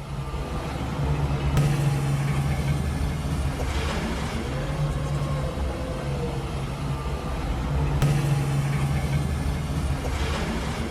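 Engine of heavy log-yard machinery running steadily with a low hum, with a fainter whine that rises and then falls back twice.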